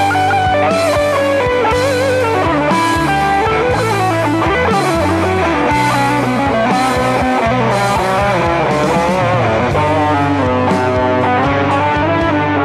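Rock music: an electric guitar plays a bending lead melody over bass and a steady drum beat.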